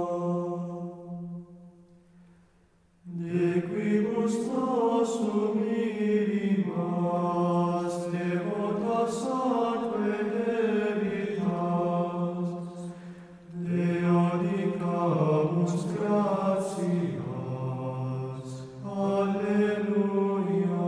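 Slow sung chant in long held notes. It fades out within the first two seconds, then starts again about three seconds in as phrases separated by brief pauses.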